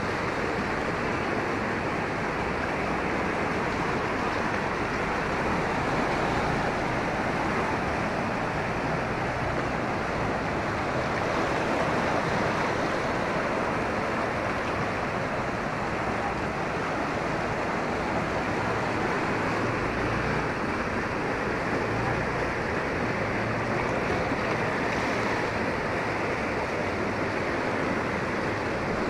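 Muddy floodwater rushing past in a fast, turbulent torrent: a steady, unbroken noise of churning water.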